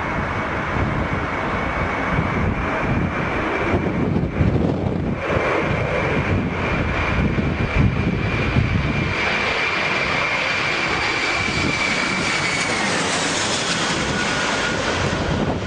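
Airbus A320 jet engines on low approach: a steady rumble with a high whine that slides down in pitch about twelve seconds in as the airliner passes overhead.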